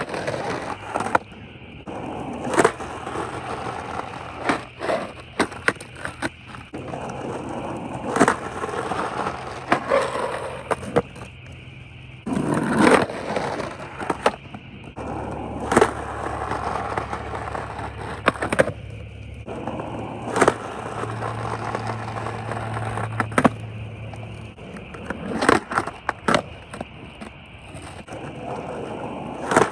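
Skateboard wheels rolling on rough asphalt. Repeated sharp clacks and scrapes come as the board pops onto a concrete curb, slides along it and lands, many times over.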